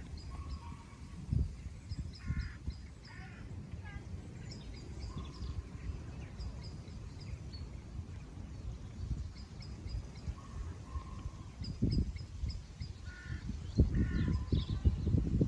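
Birds calling in the open: short, harsh cawing calls repeated every second or so in a few spells, over quick high chirps from small birds. Beneath them a low, uneven rumble swells near the end.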